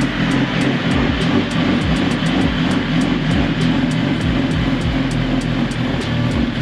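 Background music with a steady beat and a dense guitar-like sound.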